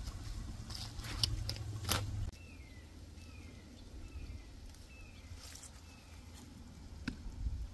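A few sharp clicks over a low outdoor rumble, then, after a cut, a bird calling five times in short falling notes about a second apart, and a single knock near the end.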